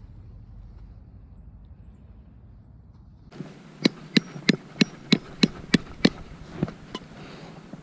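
A low wind rumble, then from about three seconds in a quick series of about eight sharp hammer blows, roughly three a second, followed by a few lighter knocks.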